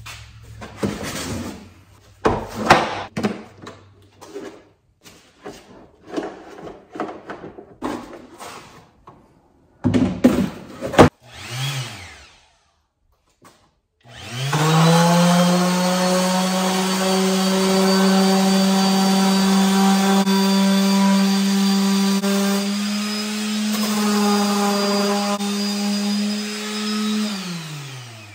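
Knocks and clatter of plastic being handled on a workbench. About halfway in, an electric power sander spins up and runs steadily as it sands the rough cut edge of a plastic milk crate, dipping slightly in pitch under load, then winds down near the end.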